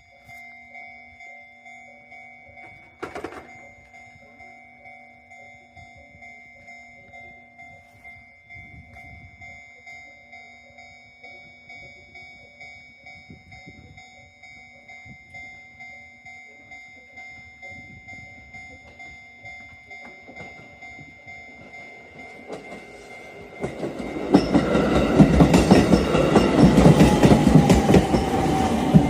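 A Japanese level crossing alarm rings with a steady, evenly repeating electronic tone. About twenty-three seconds in, an electric train on the JR Iida Line arrives and runs loudly over the crossing with the rumble of its wheels on the rails, while the alarm keeps ringing.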